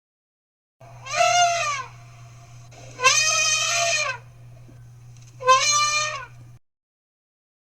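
Mammoth sound effect: three drawn-out animal calls, each rising then falling in pitch, about a second long and roughly two seconds apart, over a steady low hum.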